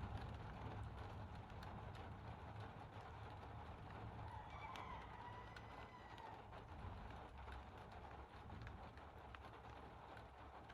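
Faint rainfall with a steady low wind rumble and scattered drops tapping. About halfway through, a faint drawn-out call sounds for about two seconds.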